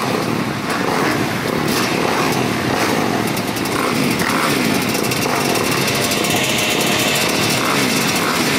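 Many motocross bikes revving at once, a dense mix of engines overlapping and rising and falling in pitch, as the riders hold them ready on the start line for the gate drop.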